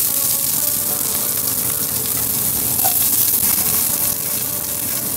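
Freshly chopped onions hitting hot oil with frying garlic, giving a loud, steady sizzle as they begin to sauté.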